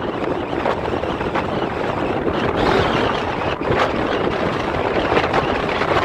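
Wind rushing over the microphone, mixed with rolling road noise, while riding a NIU M+ Sport electric scooter and gaining speed at about 40 km/h. It is a steady, even rush, with no motor or engine note standing out.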